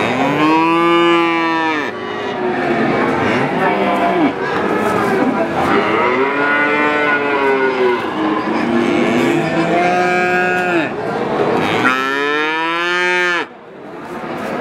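Calves mooing again and again, several overlapping calls that each rise and then fall in pitch. The loudest, longest moos come near the start and about twelve seconds in, with a steady background noise.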